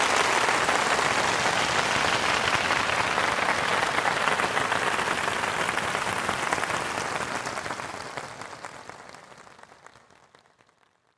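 Large crowd applauding: dense, steady clapping that gradually fades out over the last few seconds.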